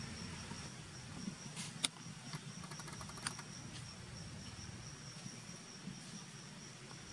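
Insects calling in a steady high-pitched drone at one pitch, over a low hum. A few sharp clicks and a quick run of ticks come about two to three seconds in.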